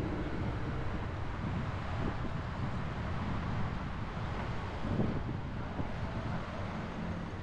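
Car driving, with a steady rumble of engine and road noise and a brief louder bump about five seconds in.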